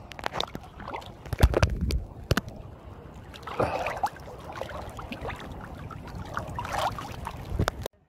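Sea water splashing and sloshing around a camera held at the surface by a swimmer, with frequent sharp slaps as small waves and strokes hit it. The sound cuts off suddenly near the end.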